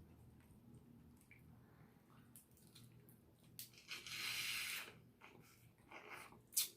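Close-up eating sounds while working through seafood: soft wet squishing and small clicks, then a hiss lasting about a second roughly four seconds in, and a sharp click near the end.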